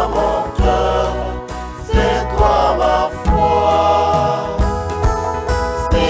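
Small mixed group of men and women singing a gospel song in harmony through microphones and a PA, over backing music with a deep bass and a regular beat.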